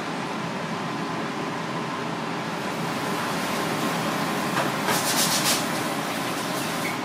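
Steady background hum and hiss of a busy shop or street, with a faint steady whine. About five seconds in comes a short burst of light clicks and clatter.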